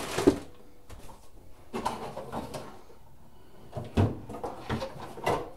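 Rummaging: scattered knocks and clatters of small objects being handled and moved around, in short bursts about two seconds in, around four seconds and near the end.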